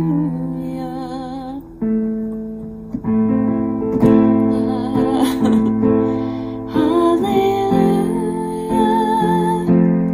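Acoustic guitar music: strummed chords that change every second or two, under a held melody line that wavers like a singing voice.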